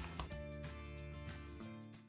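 Background music with a steady beat, winding down as it ends: the bass drops out near the end and the music begins to fade.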